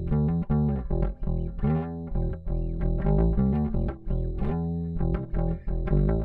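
Squier Vintage Modified Jaguar Bass played fingerstyle through its Precision-style neck pickup alone. It plays a run of plucked bass notes with a couple of slides in pitch.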